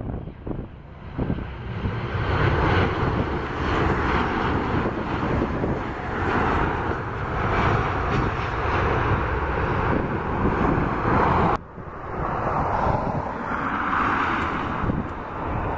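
Jet engine noise of a Boeing 737-800 airliner (CFM56 turbofans) on final approach and landing, with wind on the microphone. About two-thirds of the way through it cuts off abruptly to the engine noise of a second twin-jet airliner, an Airbus A330, on approach.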